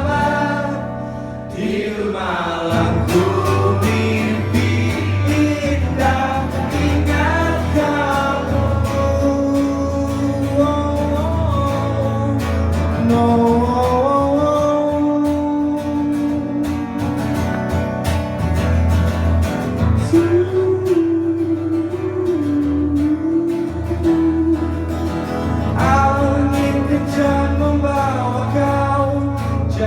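Live folk song: guitar accompaniment with a sung melody over a steady low bass line.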